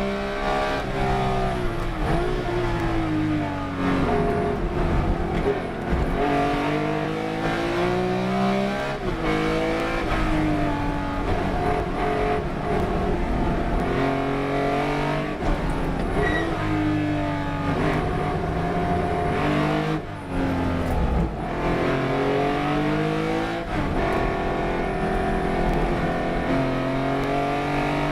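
Race car engine running hard without a break. Its pitch climbs again and again as it revs up through the gears, then drops back each time it lifts or brakes.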